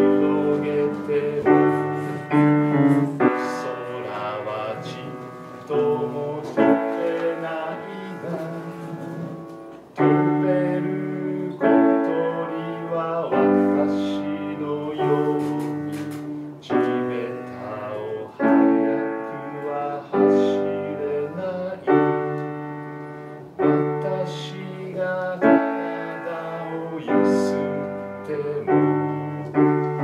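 Upright acoustic piano playing a slow, gentle piece in chords, each new chord struck every second or two and left to ring and fade.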